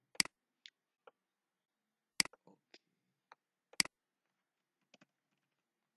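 Computer mouse button clicking: three sharp clicks about two seconds and then a second and a half apart, with fainter ticks between them.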